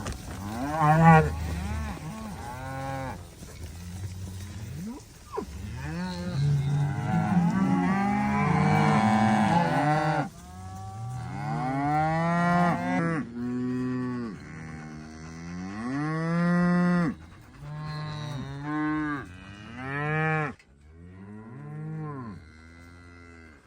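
Beef cattle mooing: many long moos from several cows, overlapping and following one another, some rising and falling in pitch.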